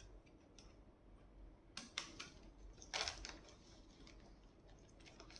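Faint handling noise of small accessories and their packaging: a few light clicks, then a brief rustle about three seconds in.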